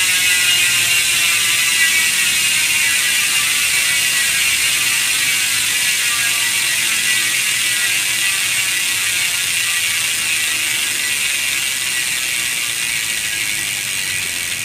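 Freewheeling mountain-bike rear hubs with modified ("edited") pawls ratcheting as the wheels coast on the stand: a fast, dense run of pawl clicks that slowly slows and fades. The cranks stay still, so the freshly repacked hubs are spinning freely without drag.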